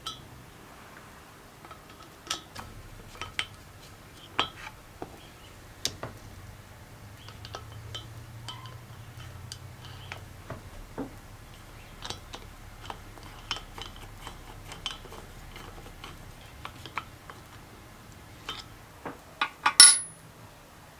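Small metal parts and tools clinking and tapping as they are handled, in scattered single clicks. Near the end, a quick run of knocks ends in a louder metallic clatter with a brief high ring.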